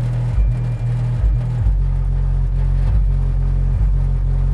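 Subwoofer playing loud, bass-heavy music as deep notes that change pitch in a steady beat, driven by the JBL ES150P's amplifier into a 4-ohm load. The amplifier keeps playing without cutting into protection.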